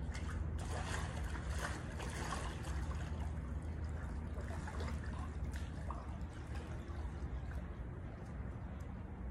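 Pool water splashing and sloshing as a person wades through a swimming pool, loudest in the first couple of seconds and then settling, over a steady low hum.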